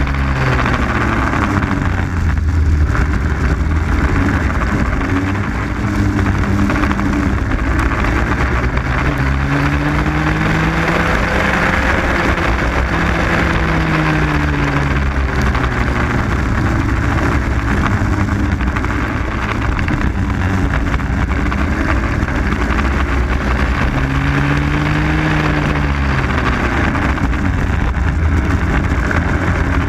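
Onboard sound of a Raket 120 two-stroke racing kart engine, its pitch climbing over several seconds on the straights and dropping into the corners, over a constant rush of wind and spray from the wet track.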